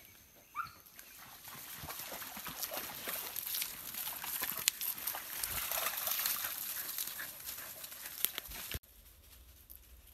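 A dog splashing and wading through a shallow stream, with irregular sloshes and splashes. The sound cuts off suddenly about nine seconds in.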